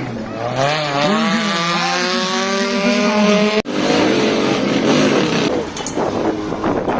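Off-road race vehicle's engine revving hard under load, its pitch climbing steadily for a few seconds. After an abrupt cut about halfway through, a rougher, noisier engine run with rattly clatter follows.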